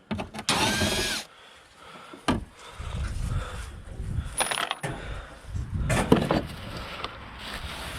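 Hand tools and metal parts clinking and knocking: a short scraping squeal near the start, then several separate metallic clicks and knocks.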